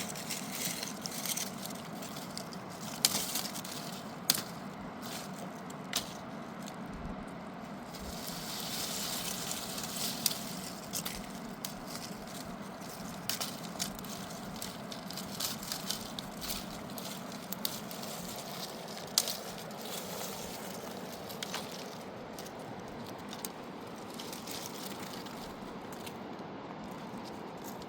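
Wood crackling and snapping: scattered sharp cracks over a steady background rush, with a brief hiss about eight to eleven seconds in.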